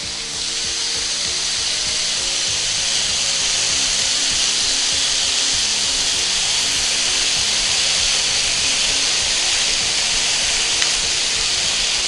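Marinated chicken satay skewers sizzling steadily in oil on a hot grill pan, with soft background music underneath.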